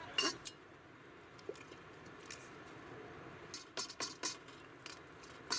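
Metal ladle clinking and scraping against a metal cooking pan while stirring seafood: a couple of sharp clinks just after the start, a quieter stretch, then a quick run of clinks about four seconds in.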